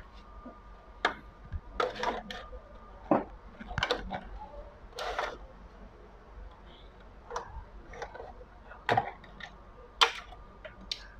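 About a dozen irregular clicks and knocks as a CRT TV's main circuit board chassis is handled and slid out of its plastic frame.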